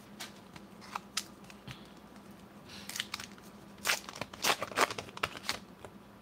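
1990 Upper Deck baseball cards being handled and sorted: a scatter of short clicks and snaps of stiff card stock being flipped and set down on stacks, with a soft rustle near the middle and the clicks coming thicker in the second half.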